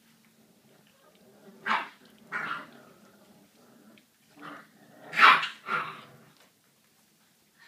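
A 38-day-old American Staffordshire Terrier puppy barking in short yaps, five in all, the loudest about five seconds in.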